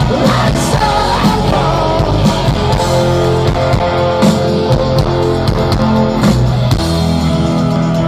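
Rock band playing live through a festival PA: electric guitar and drums, with a sung line near the start, settling into held guitar chords near the end.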